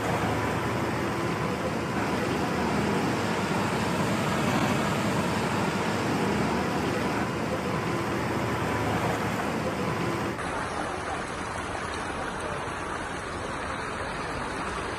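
Steady rushing noise of moving floodwater, with a vehicle engine running underneath. About ten seconds in it switches abruptly to a different recording with a duller, quieter steady rush of water.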